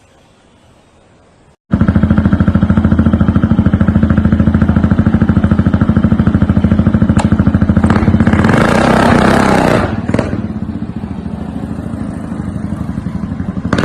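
A loud engine starting up suddenly about two seconds in and running with a rapid, even beat. A hissing rush rises over it about eight seconds in and dies away near the ten-second mark.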